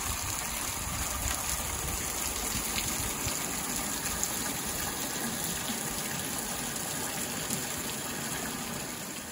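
Rain falling and rainwater pouring off a roof edge, splashing onto the ground and deck below, in a steady rushing. The roof's rainwater pipes are not yet hooked up, so the runoff spills freely instead of going to the tank.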